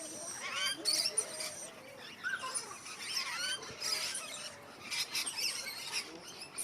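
Many birds in a walk-in aviary chirping and calling at once: a busy chatter of short, sweeping calls overlapping one another.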